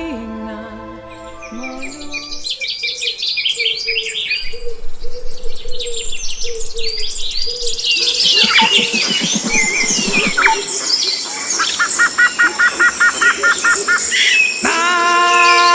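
A dense chorus of birds chirping and trilling, many short calls overlapping, with a run of evenly repeated chirps late on. Music fades out at the start and comes back in near the end.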